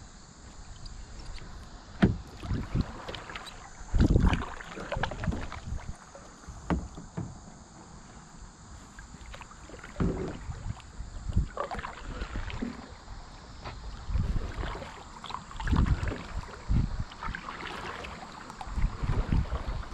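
Kayak paddle strokes dipping and splashing through river water at an uneven pace, a surge every second or two.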